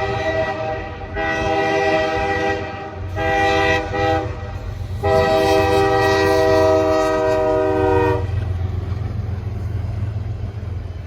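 Freight locomotive's multi-tone air horn sounding the grade-crossing signal: long, long, short, then a final long blast of about three seconds. A steady low rumble of the passing train runs underneath and carries on after the horn stops.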